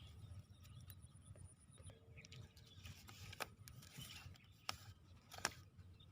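Near silence, with a few faint sharp clicks in the second half.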